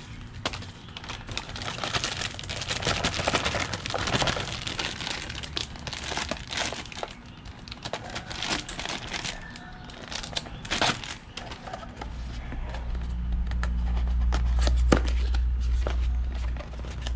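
Crinkling and rustling of clear plastic bags and plastic wrap as carburetor-kit parts are handled and pulled out of their packaging, in irregular bursts. In the last few seconds a steady low rumble comes up and is the loudest sound.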